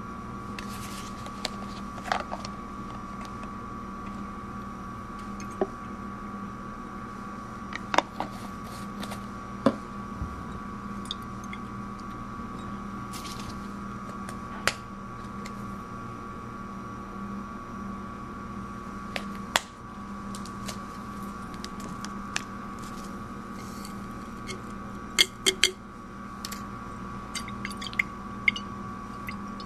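Scattered sharp clicks and taps of a plastic reagent dropper bottle and a glass Erlenmeyer flask being handled, with a quick cluster of them near the end, over a steady room hum.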